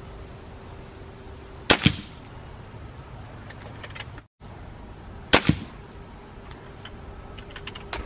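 Two shots from a Beeman R9 spring-piston air rifle, about three and a half seconds apart, each a quick double crack.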